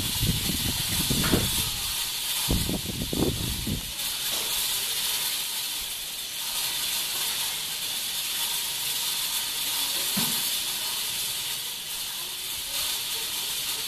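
Cicada song: a steady, high-pitched buzzing hiss. Low thumps and rumble sound on the microphone during the first four seconds.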